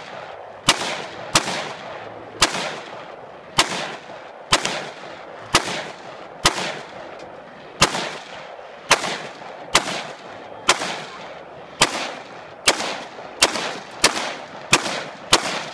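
AR-15 rifle fired semi-automatically in a steady string of about seventeen shots, roughly one a second, coming a little faster near the end, each shot trailing off in a short echo.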